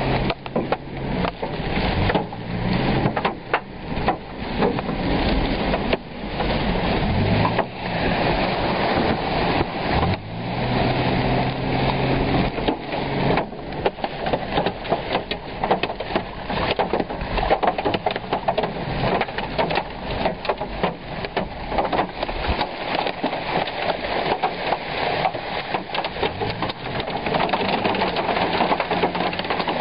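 Heavy rain and hail driven by tornado winds, pelting a car in a dense clatter of rapid hits over a steady rushing noise. A low steady hum sits underneath through the first half and returns near the end.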